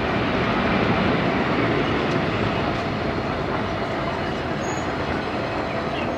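Jet airliner engines: a steady, broad rumble that slowly eases off.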